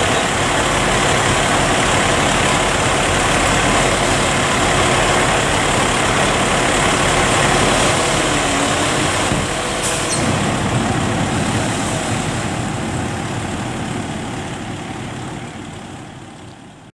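Parked fire trucks' engines running steadily, a dense even noise that fades out over the last few seconds.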